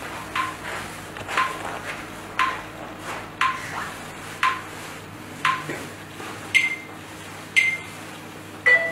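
Short electronic beeps about once a second, six at one pitch and then three at a higher pitch, like a countdown timer ticking down to the start of a recording, over a faint steady room hum.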